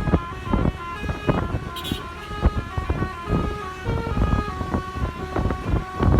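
Bus telolet horn, a multi-tone air horn, playing a tune of short steady notes that step from pitch to pitch several times a second. There is a low rumble and thumping underneath.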